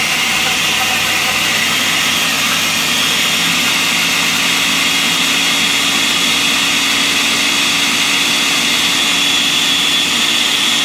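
Countertop electric blender running steadily, its motor giving a constant hum and high whine as the blades chop cauliflower pieces in water into crumbles.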